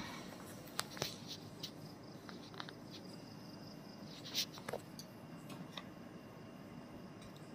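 Low room hum with a few scattered light clicks and taps, the loudest about four and a half seconds in.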